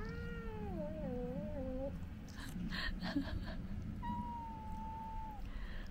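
Domestic cat yowling in a drawn-out, wavering moan that dips up and down in pitch, then a higher, nearly steady call about four seconds in: cats growling and caterwauling at each other while squabbling over thrown scraps of food.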